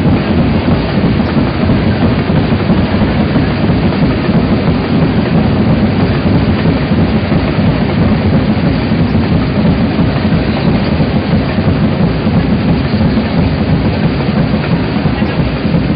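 Loud, steady rumbling noise, heaviest in the low range, with no distinct events.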